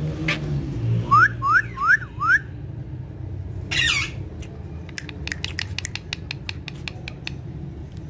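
Pet rose-ringed and Alexandrine parakeets calling: four quick rising chirps in a row about a second in, one harsh squawk near the middle, then a run of short sharp clicks.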